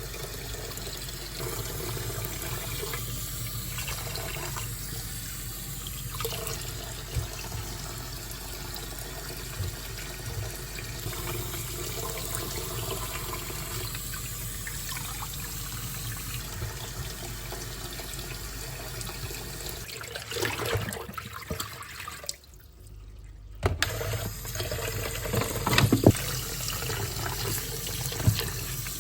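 Tap water running steadily into a sink. It breaks off briefly about three quarters of the way through, followed by a few knocks.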